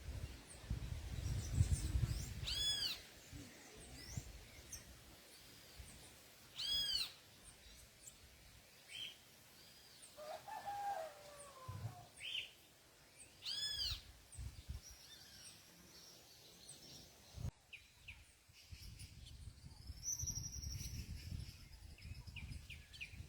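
Wild birds calling: three clear notes that rise and fall, a few seconds apart, with fainter chirps between them. A low rumble sits under the calls at the start and again near the end.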